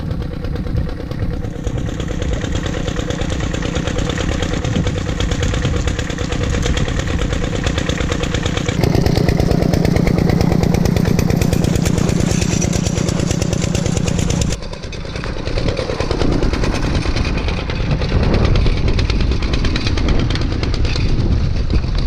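Single-cylinder diesel engine of a two-wheel walking tractor running steadily under load through wet paddy mud. It grows louder about nine seconds in and drops back suddenly about fifteen seconds in.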